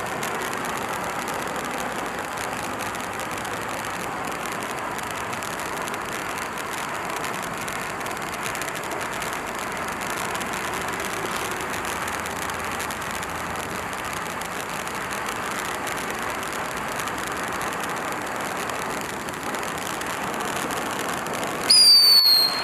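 Firework fountain hissing steadily as it sprays a jet of silver sparks. Near the end, a brief, louder falling whistle cuts in.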